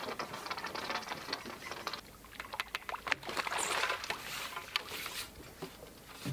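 Water splashing and dripping, mixed with many small clicks and knocks of handling, busiest in the middle.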